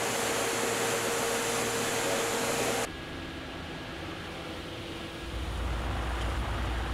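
Sake-brewery machinery around freshly steamed rice: a loud, steady hiss with a steady hum in it cuts off abruptly about three seconds in. A quieter hum follows, and a low rumble joins it near the end.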